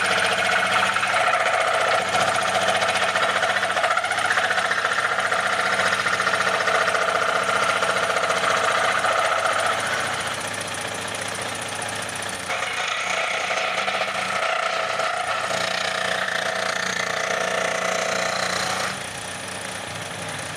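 Power saw with a thin vertical blade cutting through bamboo wood, a steady mechanical drone. It eases off about halfway through, comes back a couple of seconds later, and eases again near the end as the blade leaves the wood.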